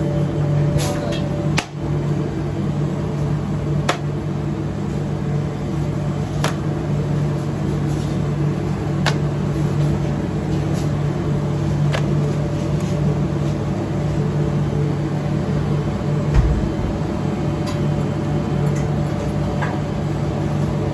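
Steady low mechanical hum of a commercial kitchen, with a sharp click every few seconds while paratha dough is stretched thin by hand on an oiled counter.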